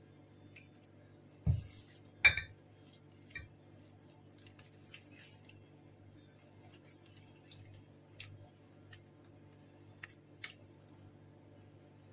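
Hands shaping minced chicken köfte mixture at a glass bowl: a knock and a ringing glass clink a couple of seconds in, then scattered small wet clicks and ticks, over a low steady hum.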